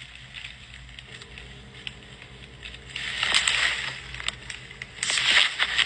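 Rustling and handling noise from a phone being moved about, swelling twice, with small clicks over a steady low hum.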